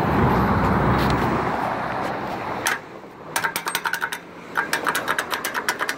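A passing car's tyre noise fades away. Then a crosswalk push-button station gives rapid clicking in bursts of about a second, roughly eight to ten clicks a second, with short pauses between bursts.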